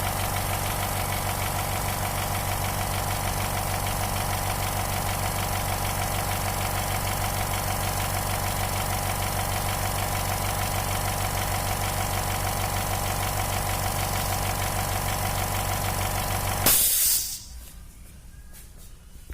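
Dental air compressor running steadily, pumping air into its 30-litre tank. About seventeen seconds in it stops with a short burst of hiss, and the sound drops away.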